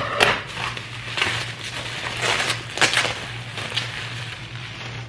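Gift-box packaging crinkling and rustling in irregular bursts as a jar candle is lifted out and unwrapped.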